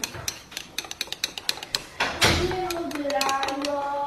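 A metal spoon clinking quickly and repeatedly against a ceramic mug as tea is stirred. About two seconds in there is a thump, then a woman's voice singing a few held notes.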